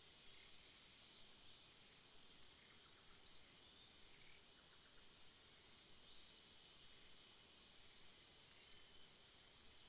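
Bird chirping: five short, high chirps that drop slightly in pitch, a couple of seconds apart, over a faint steady hiss.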